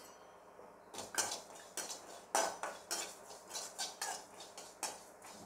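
A metal slotted spatula scraping and knocking against an aluminium kadai, stirring cumin seeds as they dry-roast. Short repeated strokes start about a second in.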